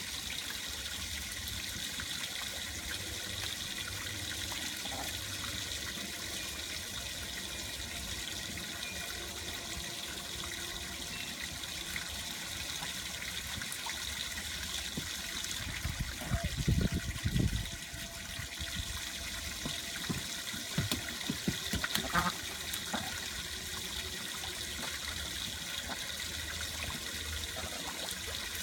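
Garden hose running, its stream spraying steadily onto a flooded wooden deck, with ducks splashing in the shallow water. Louder low thumps come twice a little past the middle.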